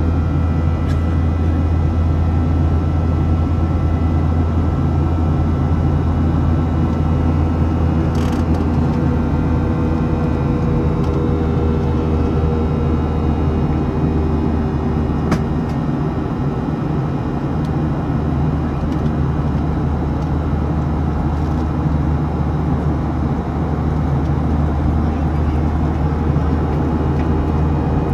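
Boeing 737-700's CFM56-7B jet engines heard from inside the passenger cabin: a steady, loud rumble with a low hum and a few faint, steady whining tones.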